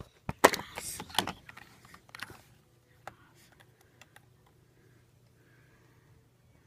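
Handling clatter of a small plastic toy figure being moved and set down on a table: a quick run of sharp clicks and knocks over the first two seconds or so, the loudest about half a second in, then a couple of light clicks and a faint steady hum.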